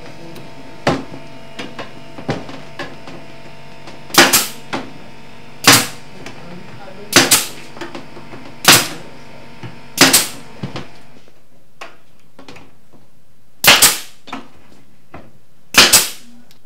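Pneumatic brad nailer firing brads into a wooden cabinet face frame: about eight sharp shots, one to two seconds apart, several with a quick double crack.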